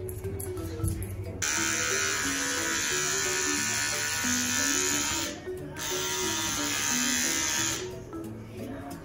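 Small handheld electric pet clipper buzzing as it trims a poodle puppy's fur, in two runs with a short break about five seconds in.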